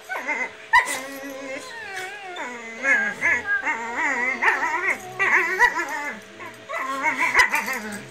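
Puppies play-fighting, giving high, wavering whines and yips almost without a break, with a few sharp clicks among them.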